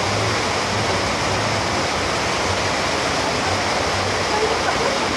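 Floodwater rushing and churning across a street, a steady loud wash of moving water.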